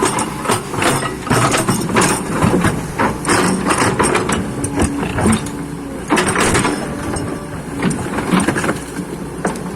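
Excavator at work: its diesel engine running steadily under many irregular knocks and clanks.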